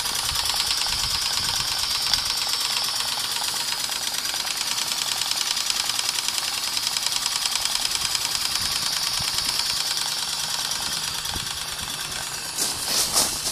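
Scratch-built live-steam model traction engine running in gear: a rapid, even mechanical clatter of its gearing over a steady hiss of steam. It is noisy, as such engines are when running in gear. A few louder noisy bursts come near the end.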